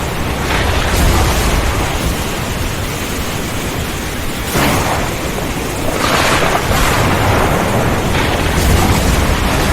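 Thunderstorm: steady heavy rain under deep rolling thunder, with a sharp thunder crack about halfway through and another burst of thunder about a second later.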